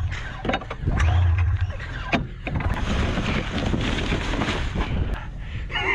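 Snowmobile engine being cranked and turning over without catching, in short rough bursts; the rider wonders whether it is flooded.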